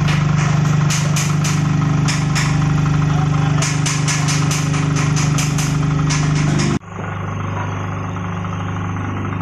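Electric vibrating flour sieve machine running: a steady motor hum with bursts of quick rattling ticks. About seven seconds in, the sound breaks off abruptly and gives way to a lower, steadier hum of the same kind of machine.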